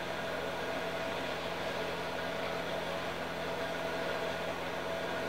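Electric fan left running: a steady noise with a low hum.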